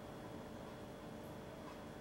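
Faint steady hiss with a low electrical hum: room tone, with no distinct sound standing out.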